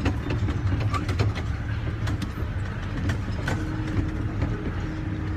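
Small amusement ride train rolling along, a steady low rumble with scattered clicks and knocks from the carriage. A faint steady hum joins about three and a half seconds in.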